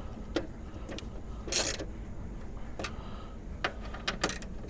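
Ratchet wrench with a 10 mm socket tightening a small screw: a few separate clicks and one short rasp of the pawl about one and a half seconds in.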